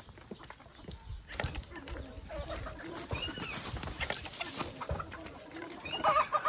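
Chickens clucking, with dry palm fronds rustling and crackling close by from about a second in; a louder call near the end.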